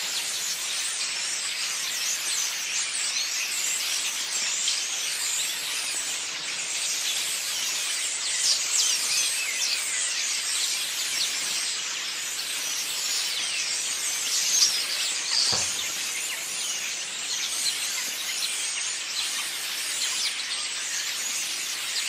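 A large flock of small birds chirping and twittering all at once, many overlapping calls forming a steady high chatter.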